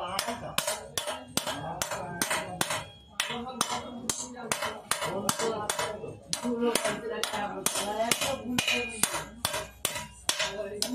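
A hammer tapping on metal in a quick, steady rhythm of about three to four strikes a second.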